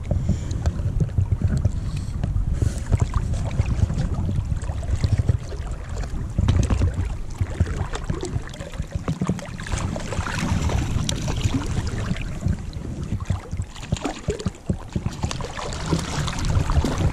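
Wind buffeting the microphone over the rush of moving river water, with splashing near the end as a hooked brown trout thrashes at the surface.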